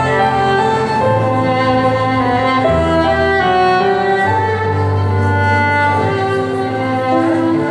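Live instrumental passage from a small band: a violin carries the melody over a plucked upright double bass line and keyboard, with no singing.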